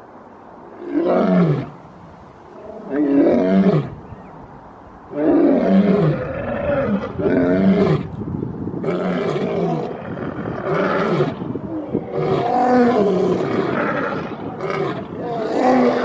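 Two male lions roaring. First come two single calls, each falling in pitch, about two seconds apart. From about five seconds in, the two lions' roars overlap without a break.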